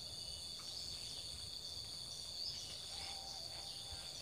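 A steady, high-pitched chorus of insects droning on without a break, with a low rumble and a few faint rustles.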